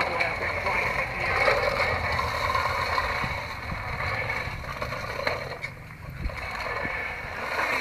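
Steady outdoor background noise: a low rumble under a constant high-pitched hum, with a few faint clicks and knocks.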